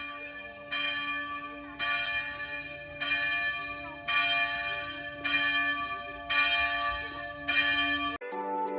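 Bell chimes struck about once a second, seven strikes in all, each ringing on over a steady low drone, until an abrupt cut to different music near the end.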